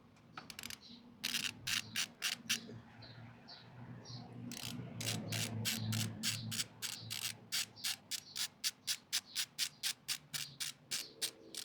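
Ratchet wrench clicking as a bolt is turned: a short run of clicks about a second in, then a long regular run of clicks, several a second, from about four and a half seconds until near the end.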